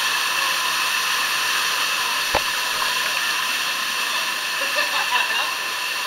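Rushing river water in a narrow rock canyon, a steady hiss picked up at the water's surface. A sharp knock comes about two and a half seconds in, and faint voices are heard near the end.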